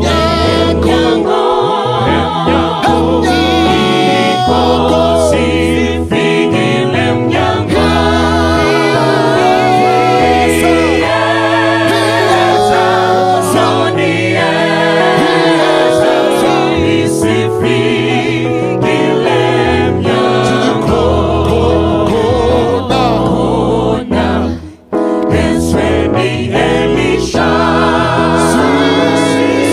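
Gospel vocal group singing in harmony into microphones, with a deep bass part beneath sustained, wavering voices; the sound breaks off for a moment near the end before the singing resumes.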